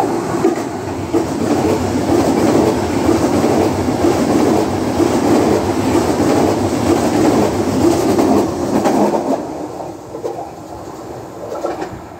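Frecciarossa 1000 high-speed electric train running through the station past the platform: a loud, steady rush of wheels on rails that fades away after about nine seconds as the train recedes.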